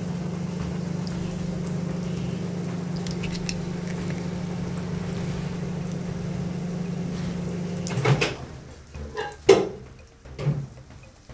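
Microwave oven running with a steady hum, which cuts off suddenly about eight seconds in, followed by a few sharp knocks and clatters.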